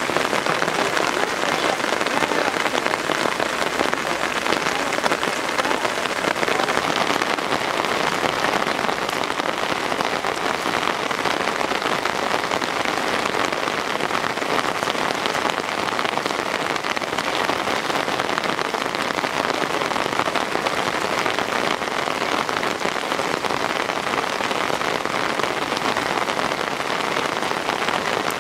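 Heavy rain pouring down steadily, an even hiss of dense raindrops.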